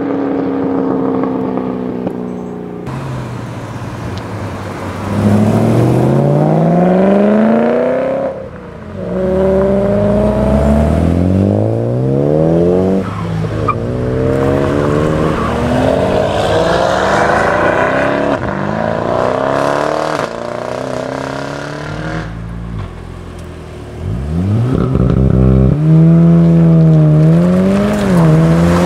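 Modified performance cars accelerating hard one after another, each engine revving up steeply and dropping sharply at every gear change.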